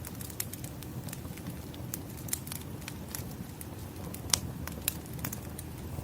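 Firewood burning, crackling with irregular sharp pops over a low steady rumble; one louder pop about four seconds in.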